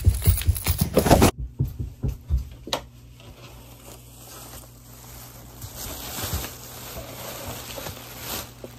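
Music cuts off about a second in. Then come a few light knocks, and plastic shopping bags rustle and crinkle as they are set down, growing louder near the end.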